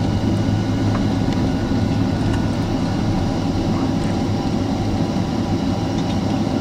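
Steady cabin noise of a Boeing 767 taxiing with its Rolls-Royce RB211 engines at idle: a constant low hum over an even rush of air.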